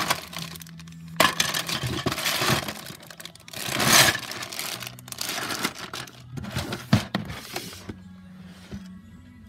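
Plastic zip-lock bags crinkling as a hand rummages through them in a plastic drawer of Lego pieces, loudest about four seconds in, with a few sharp clicks of plastic bricks knocking together near the end.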